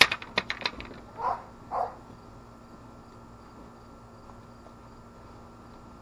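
Cardboard boxes handled in a pickup bed: a quick run of knocks and taps in the first second, then two short scrapes of cardboard shifting, after which only a faint steady background hum remains.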